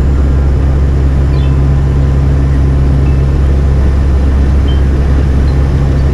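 Turboprop engines of a WP-3D Orion (four Allison T56s) in cruise flight, heard from inside the cockpit as a loud, steady drone with a constant low propeller hum.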